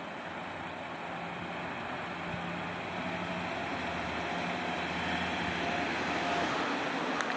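Diesel engine of a large heavy box truck pulling away at low speed, growing gradually louder as it approaches, with a faint steady whine over the engine from about three seconds in.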